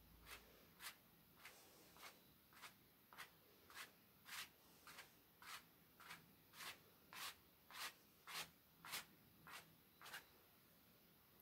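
A paintbrush scrubbing paint onto the painting's surface in short, brisk strokes, about one every half second or so, each a faint dry swish.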